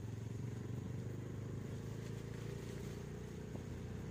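A vehicle engine running steadily while under way, a low even note with no change in speed.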